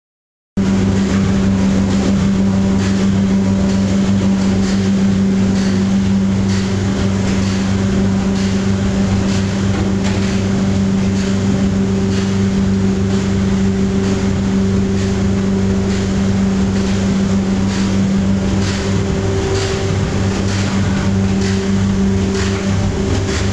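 Brine injector for meat running: a loud, steady machine hum with a strong low tone and light clicks repeating through it, starting suddenly about half a second in.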